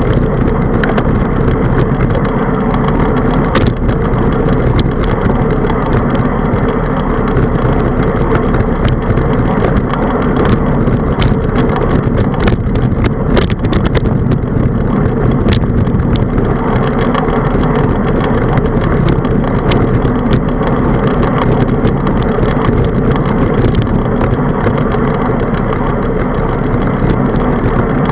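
Steady rush of wind and road noise on a handlebar-mounted camera as a bicycle rolls along a paved road, with short clicks and rattles scattered throughout.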